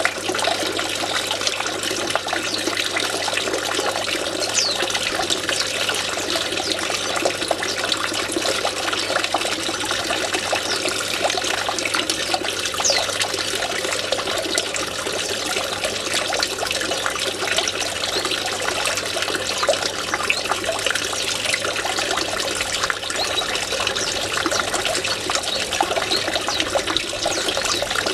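Water running steadily over the lip of a small stone fountain basin and splashing down in a constant trickle.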